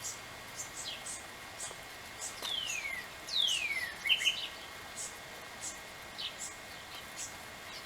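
Birds chirping: short high chirps repeating about twice a second, with two long whistles that slide down in pitch near the middle.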